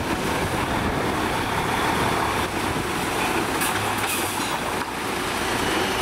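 Diesel engine of a Mercedes-Benz fire service container truck running as the truck moves off slowly and passes close by, a steady rumble with no siren.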